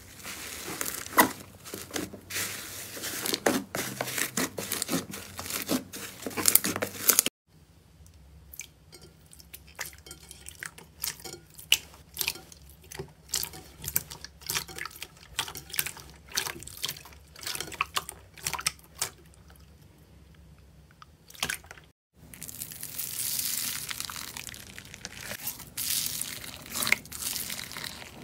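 Hands squishing, pressing and stretching slime, making a run of sticky clicks and pops. The sound cuts out briefly about 7 and 22 seconds in. In the middle part, clear pink slime pressed flat in a bowl, the pops are sparser and quieter. In the last part, blue slime mixed with foam beads, the clicks are denser.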